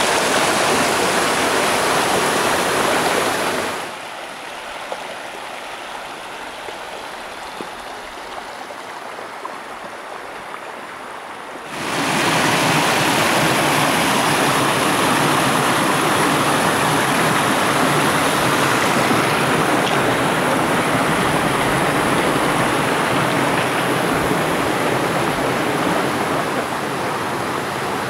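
Mountain stream rushing over rocks as a steady hiss of water. It drops to a softer rush about four seconds in and returns to full strength around twelve seconds in.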